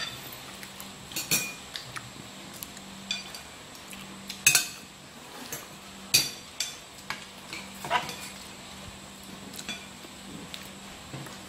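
Metal fork clinking and scraping against a ceramic plate of food: a scattered series of sharp clinks, the loudest about four and a half and six seconds in, over a faint steady hum.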